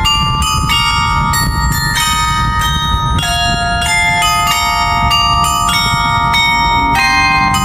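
A 35-bell carillon playing a melody: bell notes struck one after another every fraction of a second, each one ringing on under the next.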